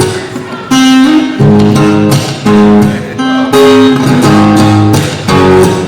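Guitar strumming the opening chords of a rock song, each chord struck hard and left to ring, with one note sliding up in pitch about a second in.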